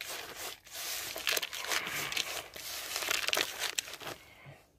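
Hands squeezing and turning damp, crumbly fishing groundbait in a plastic bucket, working in the water just added: a gritty, crackly rustling that stops about four seconds in.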